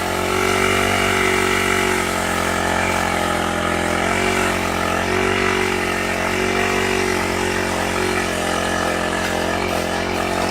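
Small petrol engine of a multi-purpose brush cutter fitted with a pole-saw attachment, running steadily at working speed, its pitch wavering slightly up and down.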